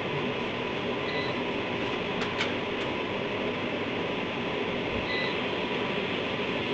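Steady background hiss and hum, like a fan or air conditioner, with a thin steady tone under it. A faint short high beep comes about a second in and again about five seconds in.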